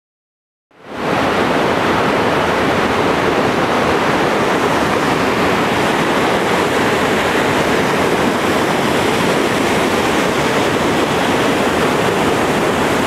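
Water of the Kamieńczyk waterfall rushing down over rocks, loud and steady, fading in quickly about a second in.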